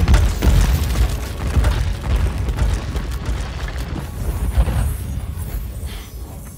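Film sound design of heavy booms and crashing impacts over a deep rumble, as a telekinetic blast drives a body down through concrete floors. The rumble fades toward the end.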